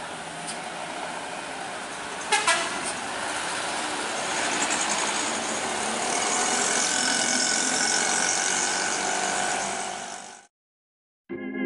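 Road traffic: vehicles running in a slow queue, with short horn toots about two seconds in and a steady horn-like tone through the second half. Near the end the sound cuts off, and keyboard organ music starts.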